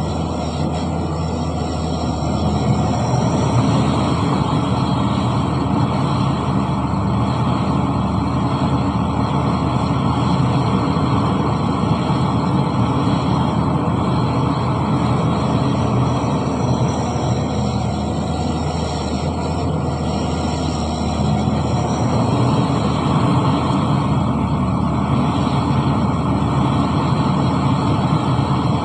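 Diesel engine of heavy earthmoving machinery running steadily under work, with small rises and falls in loudness.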